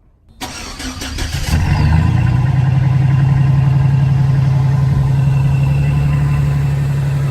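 An engine starts: cranking about half a second in, catching at about a second and a half, then running steadily until it cuts off suddenly at the end.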